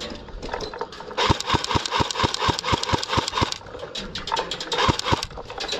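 Airsoft guns firing: an even string of shots at about five a second for some two seconds, with scattered single shots before and after it.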